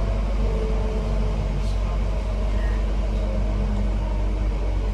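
Interior noise of a Class 323 electric multiple unit running along the line: a steady low rumble of the wheels and running gear, with faint humming tones over it.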